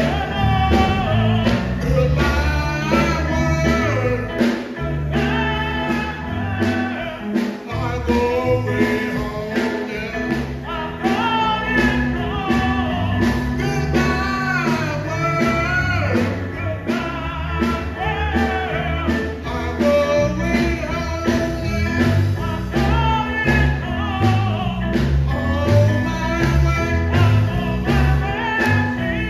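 Live gospel group performing: a lead singer sings into a handheld microphone over a band with a strong bass line and a steady beat.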